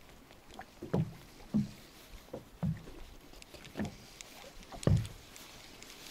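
Water slapping against the hull of a small boat at sea: a series of short low thumps, roughly one a second, the loudest near the end, over a faint hiss.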